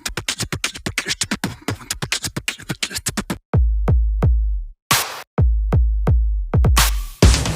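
Electronic background music: a quick roll of drum-machine hits, then heavy bass drops with short breaks, and the full beat coming back in near the end.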